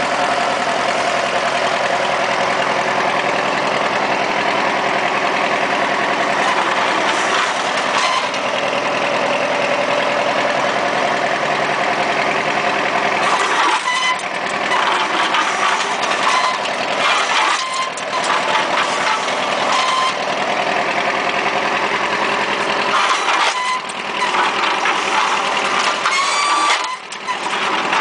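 Tractor engine idling steadily. From about halfway through come irregular knocks and clanks and, near the end, a rising and falling whine as the hydraulic controls of a tractor-mounted post driver are worked by hand.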